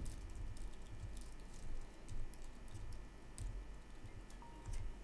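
Computer keyboard typing: a string of irregular keystrokes, quick at first and sparser later.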